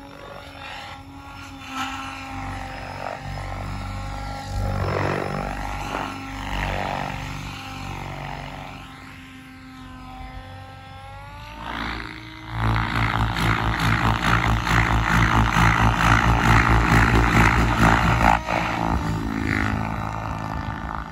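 Banshee 850 radio-controlled model helicopter flying, its motor and rotor tone gliding up and down in pitch. About twelve seconds in it turns much louder, with a fast, even rotor chop, then eases off near the end.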